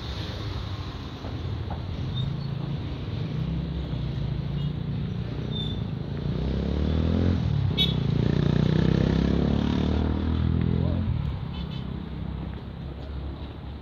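City street traffic with engines running in the background. A motor vehicle passes close about seven seconds in; its engine is the loudest sound, swelling and then fading away by about eleven seconds.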